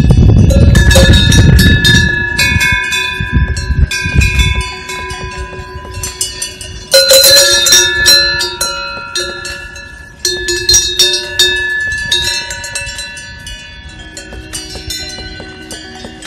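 Cowbells worn by grazing Holstein cows clanking and ringing irregularly, several bells at different pitches, with louder clangs about seven and ten seconds in. A low rumble underlies the first four seconds or so.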